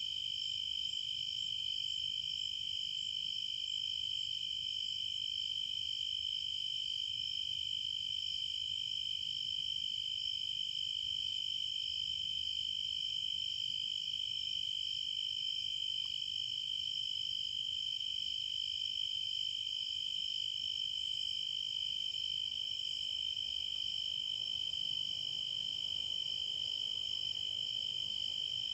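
A steady, high-pitched chorus of insects trilling, with several pitches layered together and no change in level.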